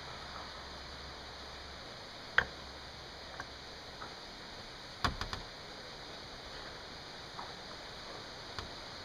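A few sharp clicks and knocks of tools and parts being handled on a workbench, the loudest with a brief ring about two and a half seconds in and a quick run of three around five seconds in, over a steady hiss.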